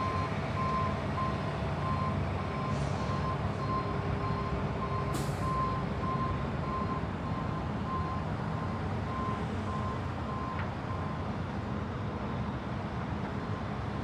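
Construction-site ambience: a heavy vehicle's diesel engine running with its reversing alarm beeping at a steady pace, the beeps stopping about eleven seconds in. A short air hiss about five seconds in.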